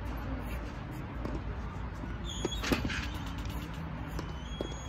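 Tennis racket hitting a ball once, a sharp pop about halfway through, with a few faint ticks of play around it, over a steady low rumble.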